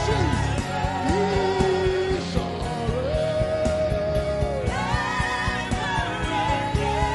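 Slow gospel worship music: a voice holds long sung notes, rising into a higher note about five seconds in, over a steady band accompaniment with a regular beat.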